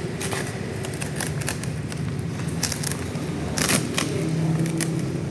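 A steady low engine-like hum runs throughout. Over it comes a scatter of sharp clicks and crackles, the loudest about three and a half seconds in, typical of packaging being handled.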